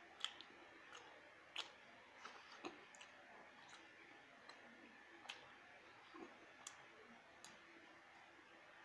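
Faint eating sounds from khichuri eaten by hand: scattered soft clicks and smacks at irregular intervals, the loudest near the start and about a second and a half in, over a quiet hiss.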